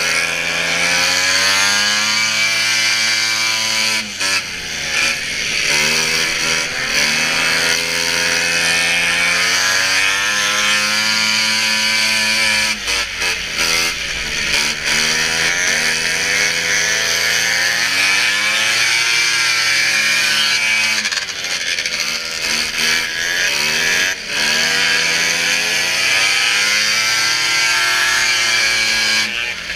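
Racing snowmobiles' two-stroke engines running hard, their pitch climbing and falling over and over as they accelerate and back off, roughly every eight seconds.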